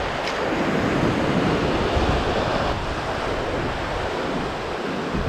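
Ocean swell surging and washing over coastal rocks, a steady loud rush of surf, with wind buffeting the microphone.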